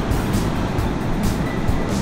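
Wind buffeting the microphone in a steady low rumble, over the wash of breaking surf.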